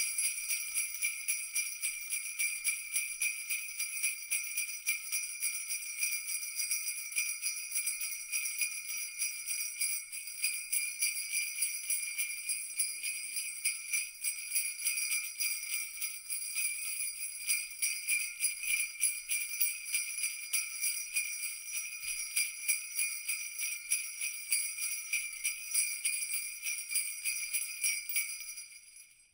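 Jingle bells shaken steadily in a continuous high jangle, fading out near the end.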